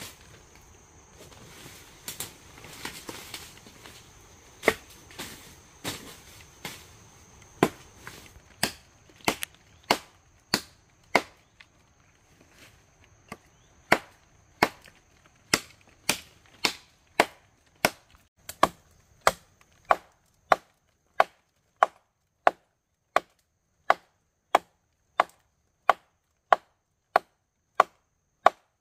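Machete chopping into a fallen log: sharp strokes, irregular at first, settling about halfway through into a steady rhythm of roughly one and a half strokes a second.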